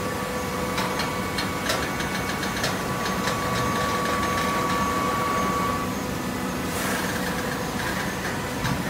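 Automatic horizontal baler for shredded paper running: a steady machine hum with a whining tone that stops about six seconds in. A run of sharp metallic clicks comes in the first few seconds, and a short hiss about seven seconds in.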